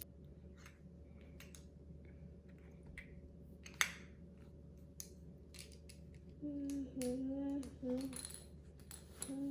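Small plastic LEGO pieces clicking and clattering as they are handled and pressed together, with a sharper clack about four seconds in. From about six and a half seconds in, someone hums a few short notes.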